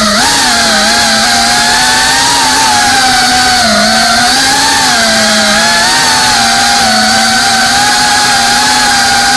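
FPV freestyle quadcopter's motors and propellers buzzing with a steady high whine, the pitch dipping and rising as the throttle changes, with a sharp dip at the start and another just before four seconds in.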